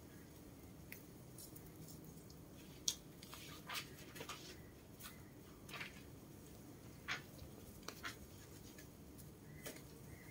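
Faint scattered clicks and taps, about eight short ones, the sharpest about three seconds in, from pigeons moving and pecking about in their cages, over a low steady hum.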